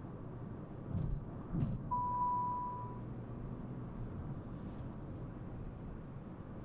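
Steady road and engine noise inside the cabin of a Dacia Sandero Stepway at cruising speed. About a second in there are two low thumps, and shortly after a single steady electronic beep lasting about a second.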